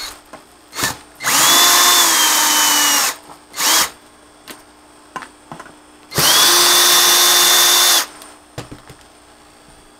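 Power drill running in two bursts of about two seconds each, with a short blip between them, as it backs out housing screws.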